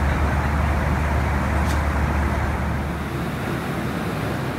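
Cabin noise of a Boeing 737-400 in flight: a steady rushing drone of airflow and its CFM56-3 engines over a strong low hum. The low hum weakens about three seconds in, and there is one faint tick before that.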